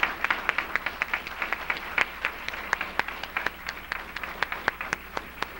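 An audience applauding, many hands clapping, the claps thinning out toward the end.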